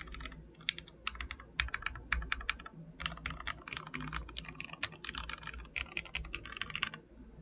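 Royal Kludge RK71 mechanical keyboard with XDA-profile keycaps being typed on in fast runs of key clicks. There is a short pause about two and a half seconds in, and the typing stops shortly before the end.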